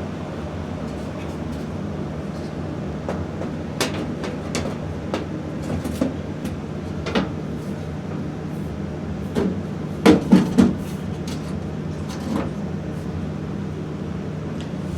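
Carrier gas furnace blower fan running steadily after the burner has shut off, under the clatter and knocks of the furnace's front cover panel being fitted back on, with three loud knocks about ten seconds in.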